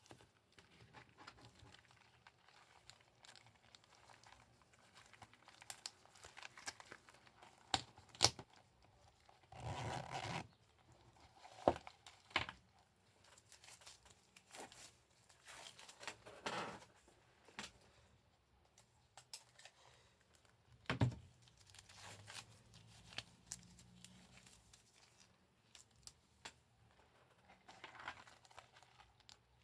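Unboxing sounds from handling packaging: scattered crinkling and rustling with small clicks, a longer rustle about ten seconds in and a sharp knock about twenty seconds in.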